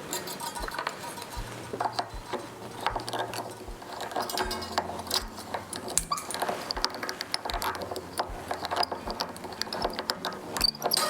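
Backing music with a steady beat and a bass line, under scattered clicks and taps as a new string is wound onto an acoustic guitar's tuning peg.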